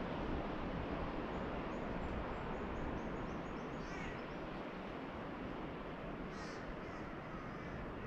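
Steady wash of ocean surf with birds calling over it: a quick run of high chirps early in the first half, then a few short, brighter calls, the loudest just past the middle.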